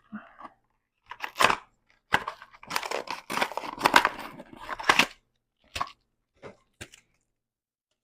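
Packaging being pulled and torn open by hand, with irregular crackling and crinkling in bursts, then a few short clicks before it stops.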